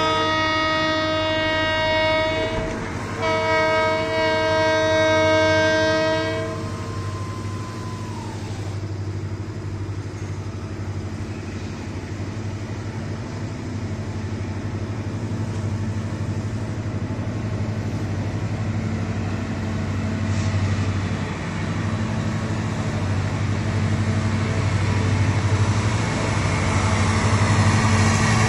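Multi-chime air horn of a TCDD DE 33000-class diesel-electric freight locomotive, built to the EMD GT26CW-2 design, sounding two long chord blasts as a level-crossing warning; the first cuts off early and the second lasts about three seconds. Afterwards the locomotive's diesel engine rumbles steadily, growing louder toward the end as it approaches.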